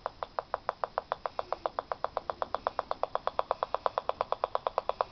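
Clicks from a low-power 'penny' oscillator, made audible through a radio, running on an iron pyrite rock cell with a steel cat's-whisker contact. The even clicks speed up steadily, from about five to about nine a second, as the whisker sits on a better spot on the rock and the cell delivers more current.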